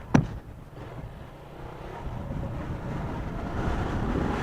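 Motorcycle engine running with a low, steady rumble that grows gradually louder, after a single sharp click just after the start.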